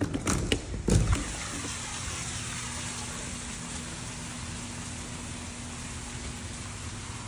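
A glass French door being opened, with latch clicks and a few knocks in the first second. Then a steady outdoor hiss with a faint low hum underneath.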